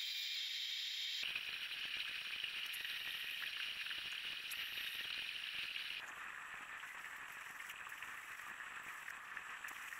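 Drill press drilling holes in an aluminium T-track extrusion: a steady hissing whir of the spinning bit cutting the metal. It changes abruptly about a second in and again about six seconds in, and is quieter after the second change.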